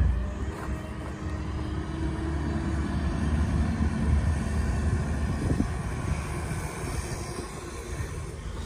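Wheel loader's diesel engine running steadily as it clears snow, a continuous low rumble.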